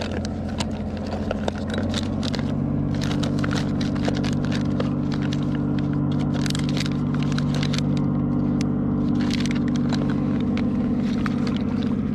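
A boat engine's steady drone that steps up slightly in pitch about two seconds in and then holds, with many small clicks, rattles and scrapes over it from fishing tackle being handled.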